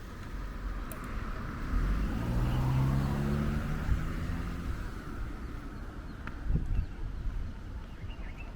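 A car driving past close by: its engine note swells for a few seconds and then fades. A couple of low thumps follow about six and a half seconds in, over a steady street background.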